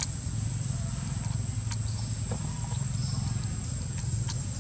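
Steady outdoor background: a low rumble under a thin, steady high-pitched whine, with a few sharp clicks now and then.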